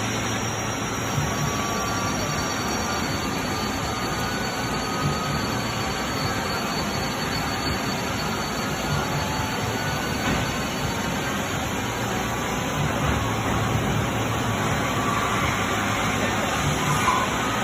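Doosan Puma 240C CNC lathe running under power: a steady mechanical noise with a low hum.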